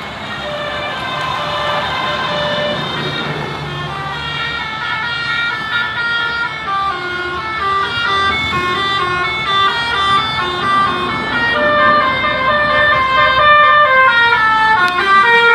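Basuri musical horn on a tour bus playing a tune: a quick run of short stepped notes over a low rumble, growing louder toward the end.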